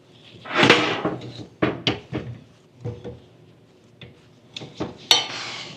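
Steel leaf springs being handled and set aside on a workbench: a sliding scrape, then a string of separate knocks and clanks, with a sharper clank near the end.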